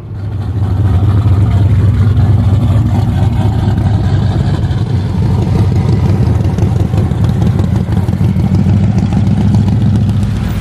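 Large V-twin cruiser motorcycle engine running loudly and steadily with a deep, low beat.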